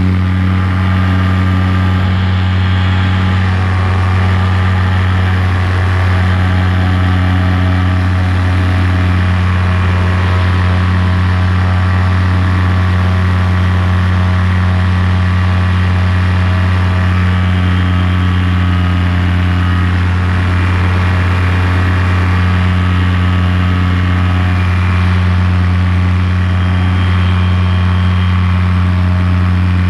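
Paramotor's two-stroke engine running at a steady throttle, an even, unchanging drone.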